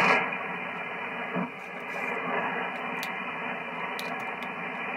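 Hiss of noisy 40-metre band static from an Icom IC-7610 HF transceiver on single-sideband receive, a little louder in the first moment and then steady. The noise is the band's own static, which drowns the weak distant station.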